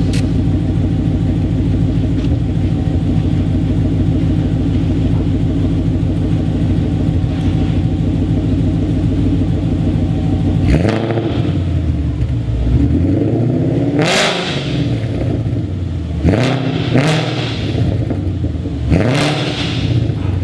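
Ford Mustang 5.0 V8 idling steadily for about ten seconds, then revved several times in the second half, each rev rising in pitch and falling back.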